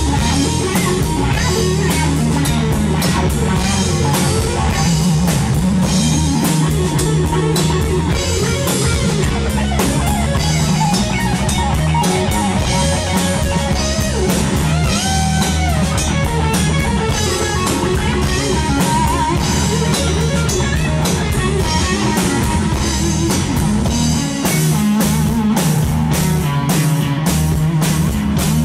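Live rock band playing loud: a Stratocaster-style electric guitar plays lead lines with bent notes over drums and bass, and no vocals. The cymbal strokes become heavier near the end.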